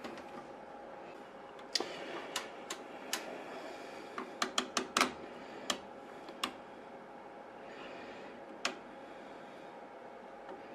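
Front-panel switches and knobs of a Gould OS245A oscilloscope being clicked as the channels are switched over. About a dozen sharp clicks, several in quick succession around the middle, over a faint steady hum.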